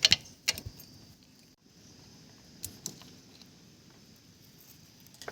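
Sharp metal clicks and clinks of monkey pliers working at a motorcycle's oil filler cap: a cluster in the first second, two more near the middle, then faint.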